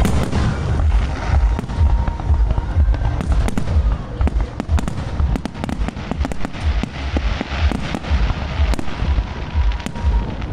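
Aerial fireworks shells bursting one after another: deep booms and sharp cracks in quick, irregular succession.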